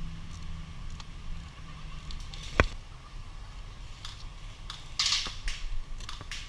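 Scattered sharp clicks and knocks during airsoft play, with one louder crack about two and a half seconds in and a short hissing rustle around five seconds in, over a low steady hum.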